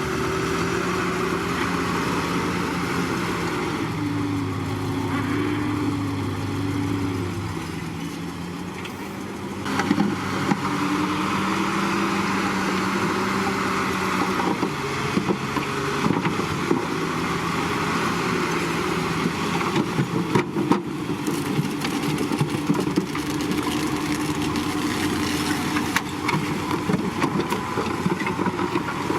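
Bulldozer's diesel engine working, its pitch rising and falling as the load changes. From about ten seconds in it is joined by frequent short clanks and knocks.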